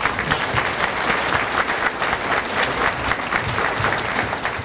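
Audience applauding: many hands clapping at once, easing off slightly near the end.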